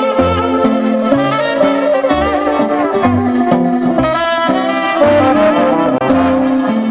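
Live band music: a trumpet plays the melody with vibrato over accordion, electric guitar and keyboard accompaniment, with a bass line moving about two notes a second.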